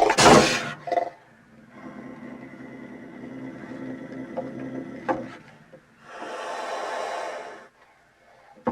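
Angry animal vocal sound effects: a loud snarl at the start, a low rough growl lasting a few seconds, then a long breathy hiss near the end.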